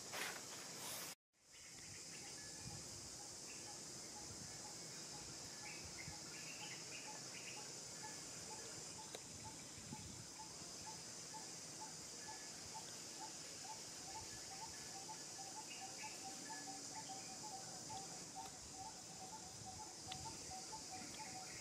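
Faint, steady high-pitched insect chorus of crickets, with a short chirp repeated about three times a second through most of it. The sound cuts out briefly about a second in.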